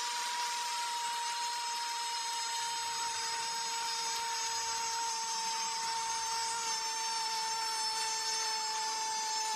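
A Spanish-language football commentator's long held goal cry, one continuous shouted note that sinks slightly in pitch, over steady stadium crowd noise.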